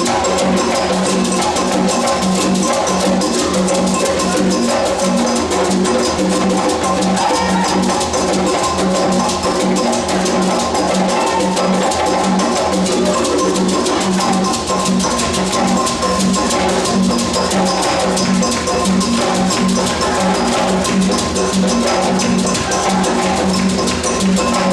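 Drum-led percussion music playing a fast, even beat that continues without a break.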